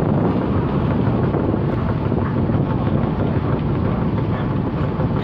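Steady low rumble of the rail-wagon ferry MV Uhuru's engines and propeller wash as it manoeuvres slowly onto the railway link span, mixed with wind noise on the microphone.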